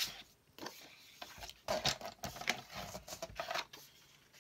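Paper being handled and set on a paper trimmer and scoring board: scattered rustles and light clicks.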